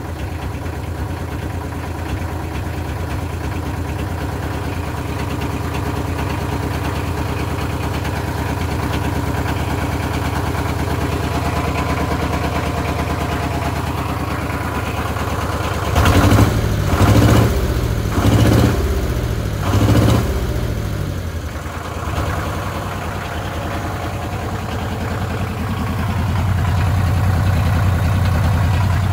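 Four-cylinder GT124 diesel engine of a 20 kVA emergency generator running after a cold start, uneven because one cylinder is not yet firing regularly and only catches now and then. About sixteen seconds in it turns louder and uneven for a few seconds in a series of surges, then settles back to a steady run.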